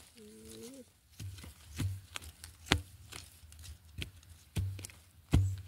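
A metal-bladed hand digging tool striking into forest soil and roots, about six dull chopping thuds at an uneven pace of roughly one every half to one second, digging out wild yam tubers.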